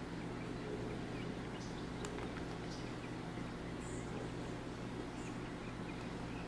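Quiet background with a steady low hum, a soft click about two seconds in, and a few faint high chirps in the second half.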